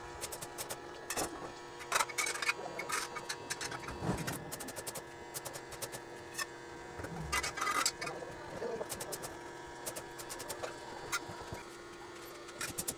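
Irregular light metal clicks and taps from hands working on a tubular steel railing frame, over a steady hum.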